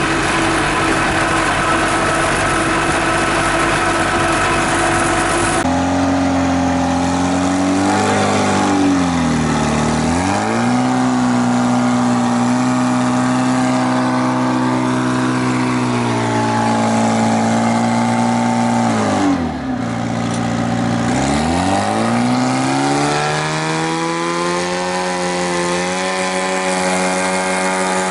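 Vehicle engine running steadily, then changing abruptly about six seconds in. After that its engine speed dips and climbs back twice, about ten and about twenty seconds in.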